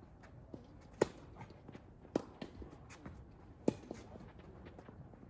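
Tennis ball struck during a rally: three sharp hits, about a second in, just past two seconds and near four seconds, with lighter taps and players' footsteps on the court between them.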